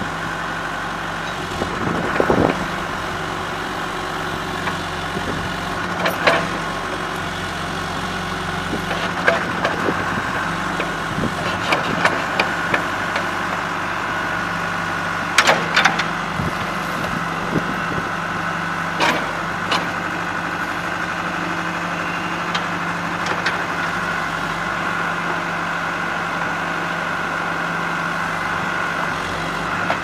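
John Deere 310G backhoe loader's four-cylinder diesel engine running at a steady idle while the backhoe boom and bucket are worked, with scattered sharp metallic clanks from the moving arm and bucket linkage.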